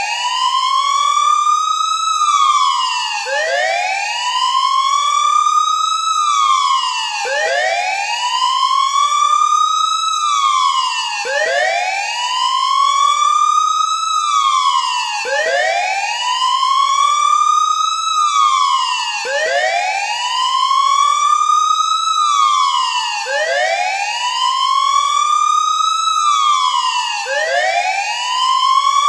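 Siren wailing steadily, its pitch rising slowly and falling again about every four seconds.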